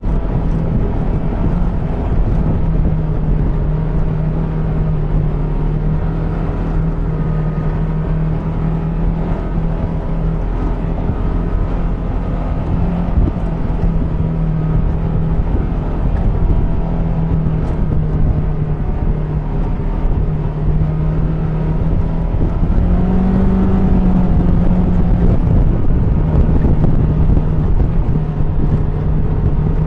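ATV engine running steadily under way on a trail, with a brief rise in engine pitch a little past three-quarters of the way through.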